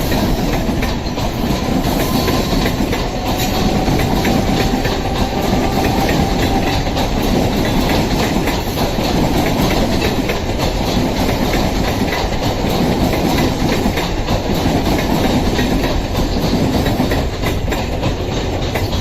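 Rajdhani Express passenger train running past at speed, its wheels clattering steadily over the rail joints.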